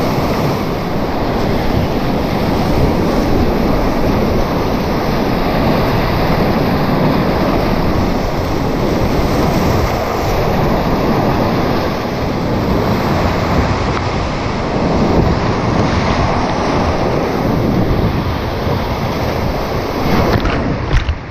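Whitewater rapids rushing loudly and splashing around a kayak's bow as it paddles through the waves, with spray hitting the microphone. Near the end a wave breaks over the boat.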